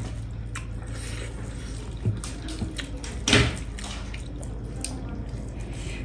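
Eating by hand from metal plates: fingers mixing rice with wet pork and curry, with scattered small clicks and wet smacks and one louder wet sound about three seconds in, over a low steady hum.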